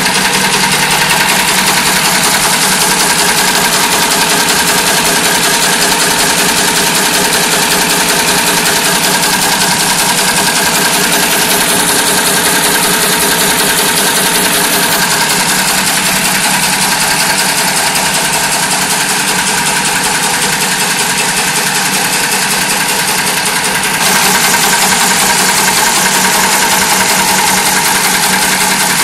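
Automatic chain welding machine running at speed: a fast, even mechanical clatter of its moving tooling, a little louder near the end.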